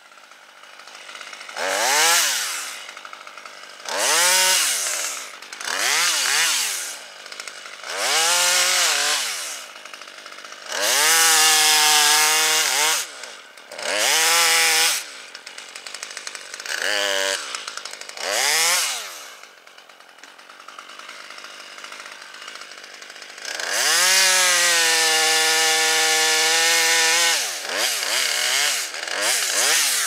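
Small two-stroke top-handle chainsaw revving in short bursts about every two seconds, dropping back to idle between. Two longer spells are held at full throttle, one near the middle and one near the end.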